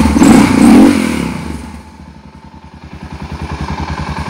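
Suzuki DR650SE's single-cylinder four-stroke engine idling with even firing pulses, about eight or nine a second, running after a jump start from a LiPo battery pack. It is revved briefly right at the start, then settles back to a steady idle.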